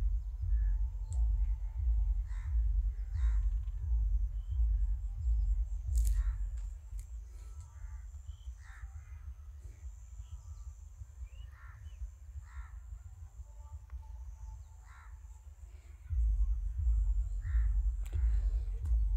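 Birds calling, short separate calls about once a second, over a low rumble that drops away about a third of the way in and comes back near the end.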